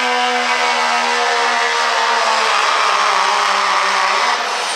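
Diesel pickup truck engine held at high revs under full load while pulling a weighted sled, a steady loud drone whose pitch sags a little about halfway through and drops away near the end as the pull slows.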